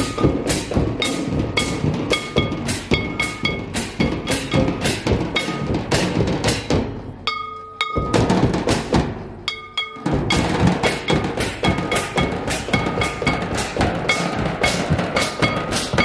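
Traditional Santali folk dance music: drums beating a steady rhythm, about two strokes a second, with a few held high tones above. The drums drop out for a couple of seconds near the middle, leaving only the held tones, then come back in.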